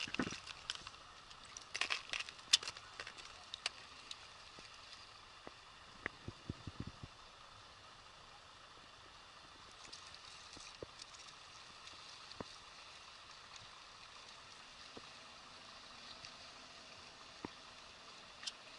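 Faint steady rush of an open river carrying slush ice, with scattered small clicks and crackles, most of them in the first seven seconds and single ones after.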